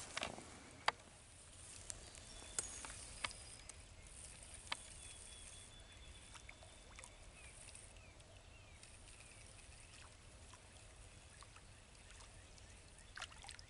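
Quiet open-air background at a pond with a few sharp, isolated clicks in the first five seconds and faint high bird chirps in the middle. A short rustling burst of noise comes near the end.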